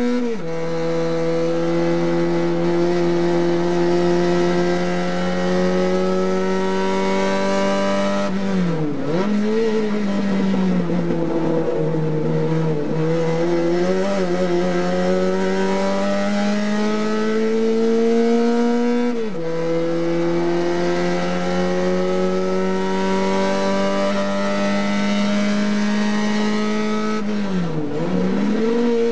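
TC 850 race car engine, heard from inside the car at full racing pace. The revs climb slowly for several seconds at a time, with sudden drops in pitch just after the start and about two-thirds of the way through, like upshifts. Near nine seconds in and again near the end, the revs dip and rise again, as when slowing for a corner.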